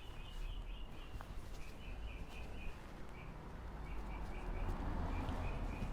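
A bird chirping in the background, a steady run of short high chirps repeating every fraction of a second, over a low rumble.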